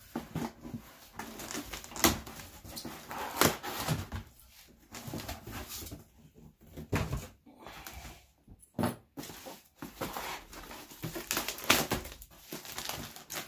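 Plastic and cardboard packaging being handled and torn open: irregular crinkling, rustling and sharp crackles, with a few louder clicks and knocks.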